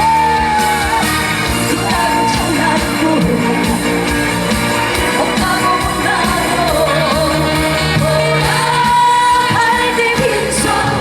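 Live trot song with an amplified band backing and a female voice singing long held notes.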